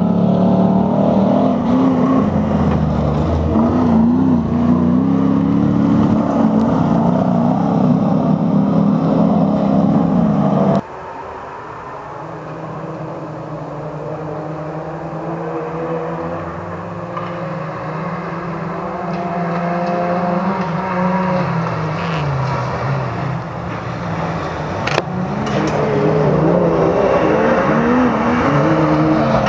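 Race trucks' engines revving hard close by, the pitch climbing and dropping. About eleven seconds in the sound cuts abruptly to quieter, more distant engines rising and falling, and a truck engine grows loud again near the end as it comes near.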